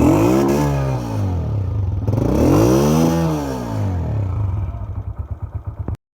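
Hi Speed SR 125 motorcycle's single-cylinder four-stroke engine blipped twice with the throttle, each rev rising and falling back to idle. The sound cuts off abruptly near the end.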